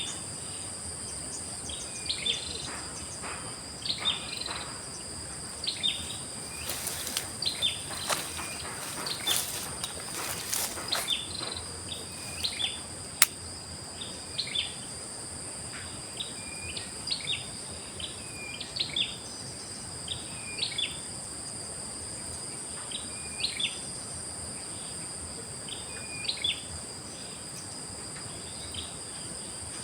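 Outdoor insect chorus, a steady high-pitched drone of crickets, with a bird giving short chirping calls every second or two. A cluster of clicks and rustles comes about seven to eleven seconds in, and one sharp click a little later.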